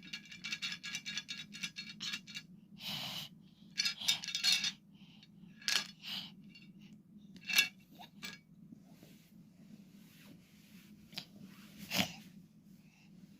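Small hard objects rattling and clinking: a fast rattle for the first two seconds or so, then scattered clinks and short scrapes, the sharpest at about seven and a half seconds. A low steady hum lies underneath.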